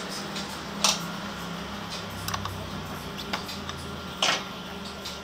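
A few sharp clicks and clinks of tools and metal parts being handled at the scooter's engine underside, the loudest about a second in and just after four seconds in, over a steady low hum.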